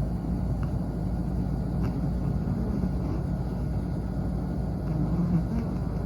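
Long-coat Chihuahua snoring: a low, steady sound with no clear breaks.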